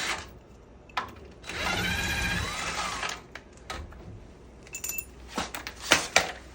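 A handheld power tool runs for about a second and a half while parts are stripped off a pickup's front end, followed near the end by a few sharp metal clanks and knocks.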